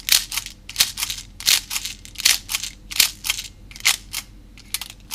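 Plastic airsoft BB speed loader pushing 0.25 g BBs into the BB chamber of a Storm 360 airsoft gas grenade. It gives a series of sharp plastic clicks and rattles, about two a second, each one a stroke of the loader.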